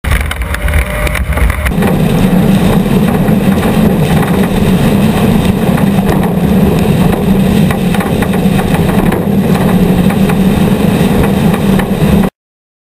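Off-road race vehicle's engine running loud at a steady pitch, mixed with heavy mechanical and driving noise; the first couple of seconds are lower and rumblier before the steady note takes over. It cuts off suddenly near the end.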